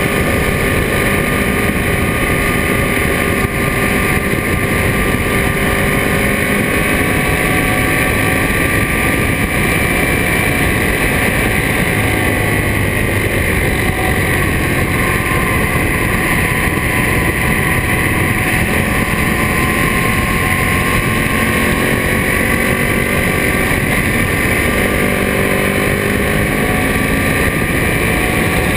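Ducati Monster S4RS's 998 cc Testastretta V-twin, fitted with a Termignoni exhaust, running steadily while cruising, its engine note rising and falling gently with the throttle through the curves, over wind noise.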